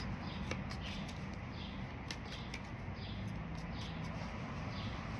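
Small birds chirping in short repeated calls over a steady low hum, with a few faint ticks.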